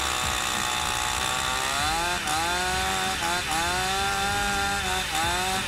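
Petrol two-stroke chainsaw running at high revs while cutting through a block of ice, with a steady hiss of ice being chipped away. The engine pitch dips and climbs back three times, about two, three and a half and five seconds in.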